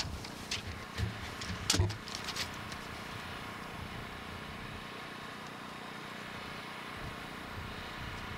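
A few sharp clicks and knocks in the first two seconds or so, then a steady low hiss with a faint constant hum.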